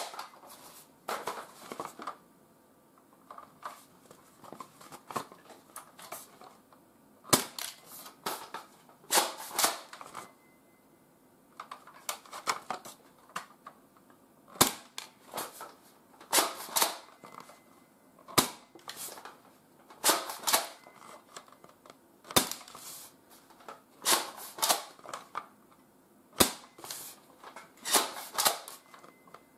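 ASG Franchi SAS 12 spring-powered pump-action airsoft shotgun being worked and fired repeatedly: clusters of sharp clacks from the pump and action, with a short sharp shot about every four seconds in the second half.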